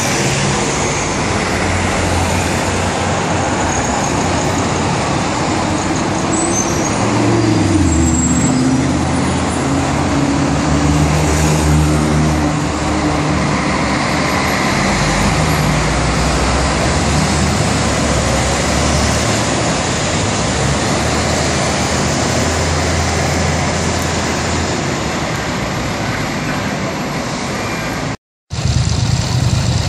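Buses and city street traffic: bus engines pass close by and pull away, with the engine note rising and falling about seven to nine seconds in, then a steadier engine drone as buses sit at a stop. The sound cuts out for a moment near the end.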